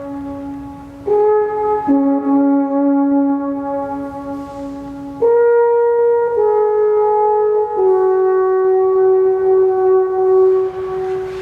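A brass-type horn playing a slow tune of about six long held notes, stepping up and down in pitch and ending on a long held note.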